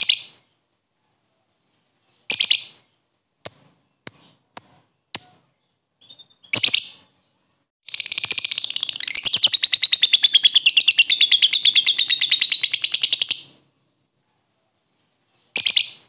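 Lovebird calling: several short sharp chirps, then a long rapid chattering trill of about five and a half seconds, the long 'ngekek' chatter prized by Indonesian lovebird keepers, and one more chirp near the end.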